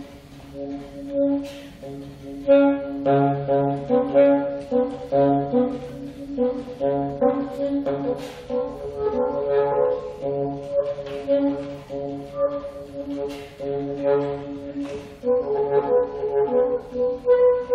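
Saxophone playing a melody of short separate notes and some held ones, over a backing track with a steady bass line and light percussion clicks.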